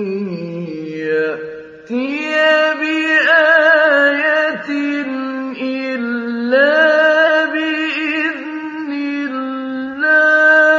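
A man's voice chanting the Quran in melodic tajweed style: long, drawn-out notes with a wavering vibrato and gliding ornaments, with a brief breath pause about two seconds in.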